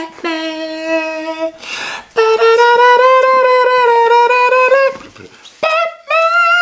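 A man singing three long wordless notes, each higher than the last. The middle note is the longest and wavers slightly.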